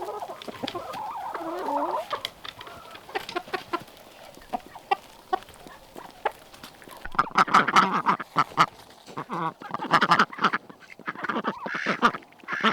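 Backyard chickens clucking, with drawn-out wavering calls at first and scattered short clicks after. From about seven seconds in, loud repeated harsh calls take over, typical of ducks quacking.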